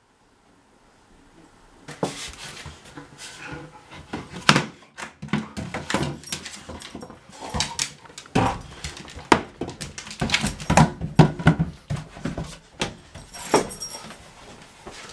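A long cardboard tube carried by a large dog, knocking and scraping against door frames, walls and the hardwood floor in a run of irregular hollow knocks that begins about two seconds in.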